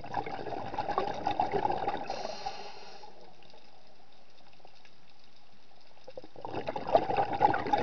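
Underwater bubbling and crackling in two spells, one over the first three seconds and one from about six and a half seconds in, with a low steady hiss between them. The spell-pause-spell rhythm fits a scuba diver breathing out through the regulator.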